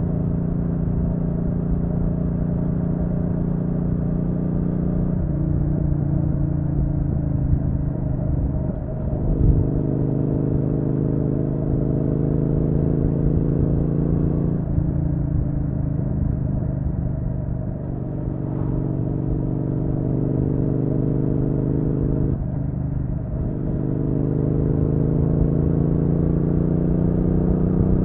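Triumph Street Twin's parallel-twin engine running under way, heard from onboard. Its pitch shifts with the throttle and drops sharply about every four to five seconds as gears change, over a low wind rumble.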